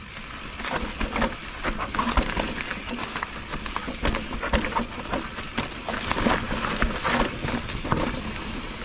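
Mountain bike rolling down a wet, muddy dirt trail: a steady hiss of tyres on the soft ground with frequent sharp knocks and rattles from the bike as it runs over roots and bumps, louder from about a second in.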